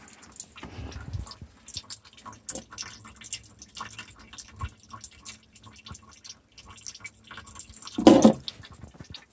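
Irregular dripping and small scattered ticks, with one short, louder burst about eight seconds in.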